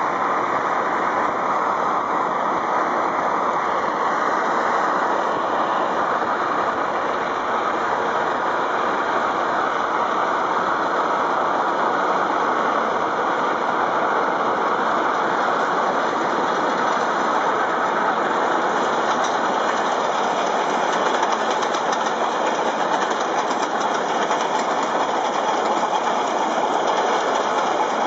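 Steady rushing noise of a car travelling at speed, pacing a working Stanier 8F 2-8-0 steam locomotive and its train, whose running noise mixes in. The higher hiss grows a little brighter in the last third as the locomotive comes close alongside.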